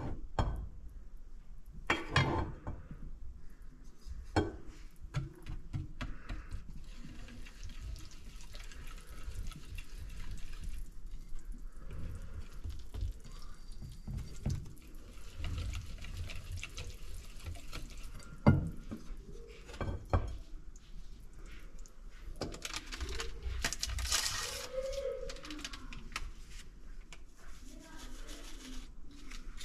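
Kitchen work on a dough: a bowl and utensils knocking and clinking with soft stirring and handling noise. A few sharp knocks come about 2 seconds in and twice near the two-thirds mark.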